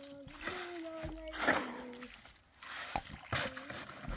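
Wet sloshing and splashing, loudest about one and a half seconds in, under a voice held on long notes that step up and down in pitch.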